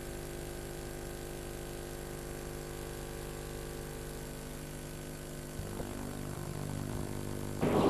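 Steady electrical hum with hiss on the recording, a few even tones held unchanged. A couple of faint clicks come about five and a half seconds in, and near the end a louder rush of room noise starts.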